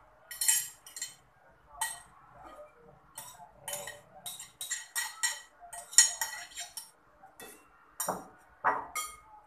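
Metal spoon clinking and scraping against a ceramic plate as food is scraped off it into a bowl: a string of short, irregular clinks, the loudest about six seconds in.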